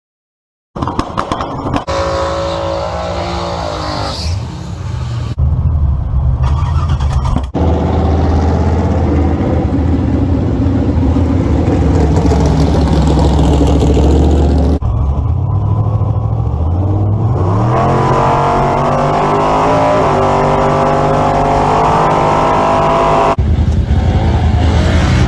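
Car V8 engine running and revving in a series of short clips joined by abrupt cuts, its pitch rising and falling with the throttle. The engine is a 6.0-litre LS V8 swapped into a 1955 Ford Customline.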